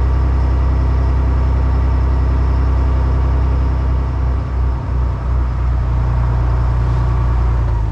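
Fishing boat's engine running steadily, a deep drone with a rushing noise over it, which stops abruptly near the end.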